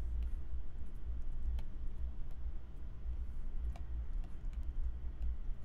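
Scattered, irregular light clicks of a computer mouse and keyboard keys, a few per second at most, over a steady low hum.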